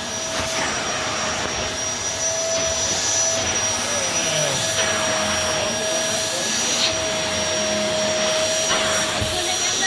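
Hitachi CV-950F vacuum cleaner running steadily: a constant rush of air with a steady motor whine over it.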